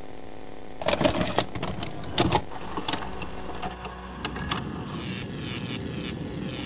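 Steady low rumble and hiss of an underwater ambience, with a cluster of sharp clicks and knocks between about one and two and a half seconds in.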